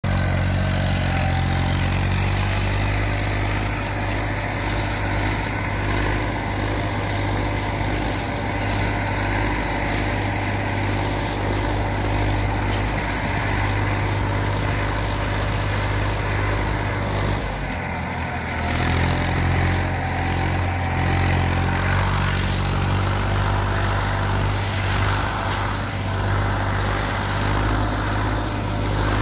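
Massey Ferguson 241 tractor's three-cylinder diesel engine running steadily while pulling a 16-foot trolley. The engine note dips briefly a little past halfway, then picks up again.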